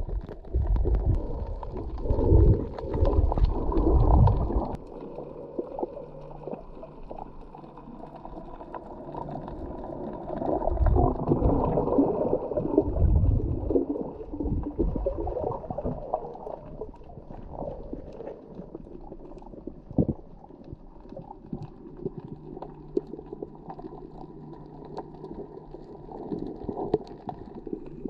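Underwater camera audio: a diver's exhaled breath bubbling out twice in low, rumbling gurgles about ten seconds apart, with a faint steady low hum and water noise in between.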